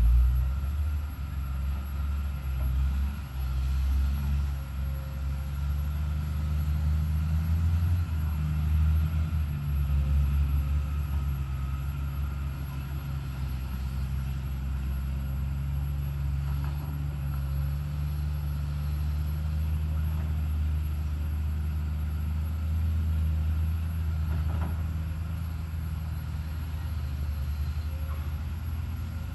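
Hyundai HX210HD hydraulic excavator's diesel engine running steadily under working load. Its low drone shifts slightly in pitch now and then as the hydraulics take load.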